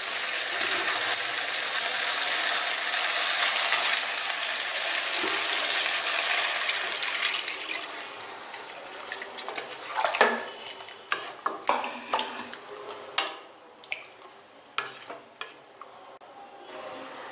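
Masala-coated chicken sizzling in oil in a kadai while a wooden spatula stirs it; the meat is fried through and releasing its oil. About eight seconds in, milk is poured in and the sizzle dies down to a quieter bubbling, broken by scattered scrapes and knocks of the spatula against the pan.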